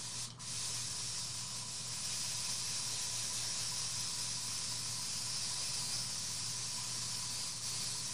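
Iwata airbrush spraying paint through a stencil: a steady airy hiss that breaks off for an instant just after the start, then runs on evenly.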